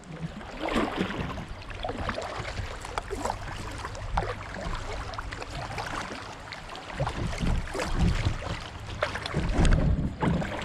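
Kayak paddling: a double-bladed paddle dipping and pulling through the water, with irregular splashing and dripping, and a few heavier low bumps in the last few seconds.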